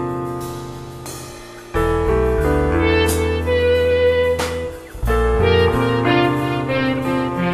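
Instrumental rock band passage: sustained keyboard chords over bass, the chord changing about two and five seconds in, with a couple of cymbal crashes in the middle.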